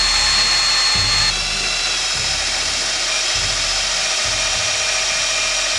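Power drill running steadily under load as it drills out a seized bolt in an outboard engine's intake manifold, with a high whine that drops slightly in pitch about a second in.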